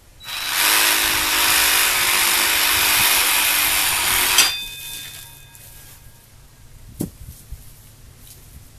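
Water and air spraying from the head of a Bison deep-well hand pump in a loud, steady hiss for about four seconds, cut off suddenly by a metallic clank that rings briefly. A single light knock follows a couple of seconds later.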